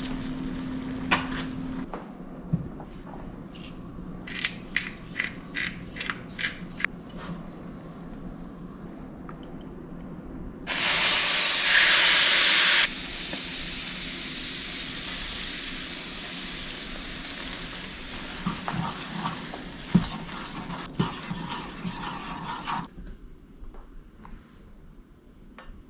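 Kitchen cooking sounds: a run of sharp clicks, then about two seconds of water pouring, then a steady hiss with scattered clinks and taps that fades out near the end.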